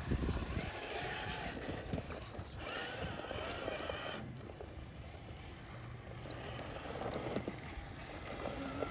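Electric motors and gears of RC crawler trucks whining as they drive, the pitch rising and falling with the throttle, with light mechanical clicking.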